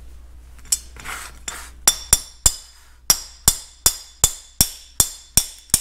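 Hammer tapping a long metal punch to drive a Welch plug out of the back of a Farmall M carburetor's throttle body: a steady run of about a dozen sharp, ringing metal-on-metal taps, roughly two and a half a second, starting about two seconds in after some light handling of the part.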